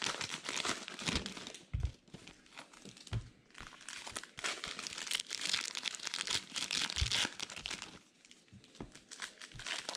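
Trading-card pack wrappers crinkling and tearing as packs are handled and opened, in uneven spurts with short lulls, plus a few soft knocks on the table.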